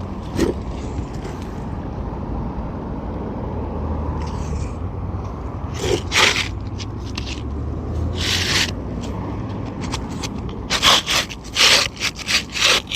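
A new asphalt shingle being pushed up under the shingles above, scraping against them in short strokes: one about six seconds in, another about eight and a half, then a quick run of scrapes near the end as it gets caught on a second layer of old shingles. A steady low rumble runs underneath.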